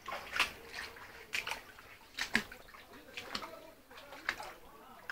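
Water splashing and sloshing in irregular short bursts.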